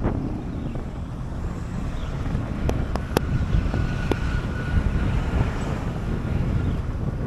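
Steady low rumbling noise with a few sharp clicks about three to four seconds in.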